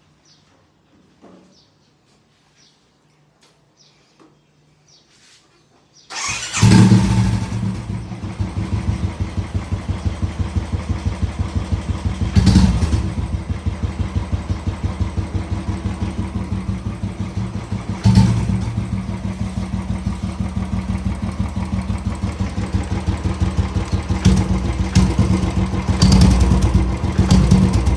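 Royal Enfield Classic 350 single-cylinder engine starting about six seconds in on its stock silencer. It then idles with an even pulsing beat, with a few short throttle blips along the way.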